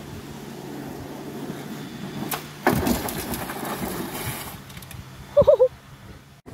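Small go-kart skidding sideways over loose dirt and gravel, a loud rough scraping crunch that starts a little under three seconds in and fades over about two seconds. Near the end a short wavering shout.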